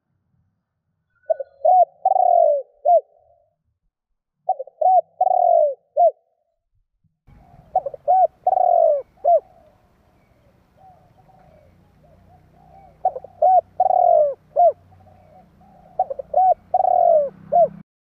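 Spotted dove cooing its song: five phrases, each a few short coos running into a longer rolling coo, with fainter coos in between. A low steady hum comes in about a third of the way through.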